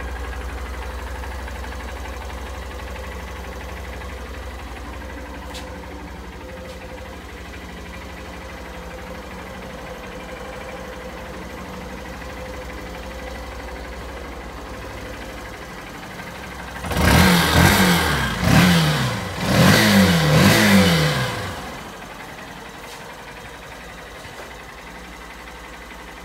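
Honda CB125F's 125 cc air-cooled single-cylinder four-stroke engine idling steadily. About two-thirds of the way through it is blipped several times in quick succession, the revs rising and falling over about five seconds, then it drops back to a quieter idle.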